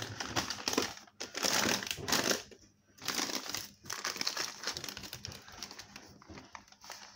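Rustling and crinkling as things are rummaged through in a kitchen cupboard, in a few loud bursts over the first four seconds, then quieter and choppier.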